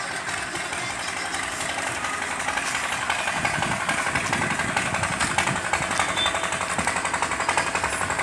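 A machine running with a rapid, even rattle, growing louder about three seconds in.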